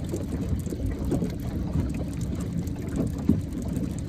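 Low, gusty wind noise buffeting the microphone.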